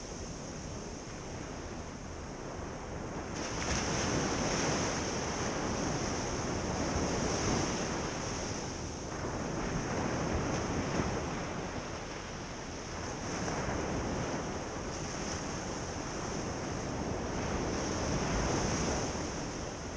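Ocean surf washing onto a beach, a steady rush of water that swells and eases every few seconds as waves break and run up.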